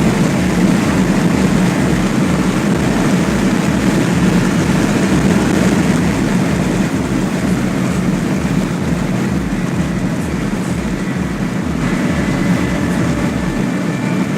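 Steady wind and road noise of a vehicle travelling at high motorway speed, with a fast low throbbing underneath.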